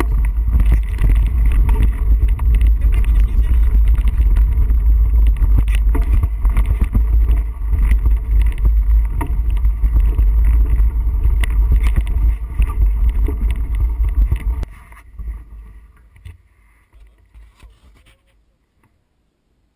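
Mountain bike ride over rocky dirt singletrack, picked up by the bike-mounted or helmet-mounted action camera: a heavy low rumble with many rattles and knocks from the rough ground. About 15 seconds in it stops abruptly, as the bike comes to a halt, and fades to near silence.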